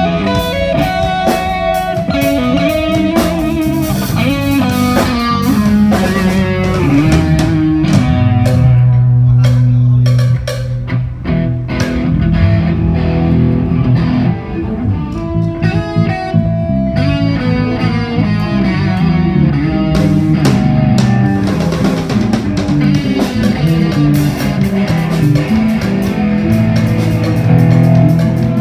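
Live band playing amplified music: electric guitar leading over bass guitar and a drum kit.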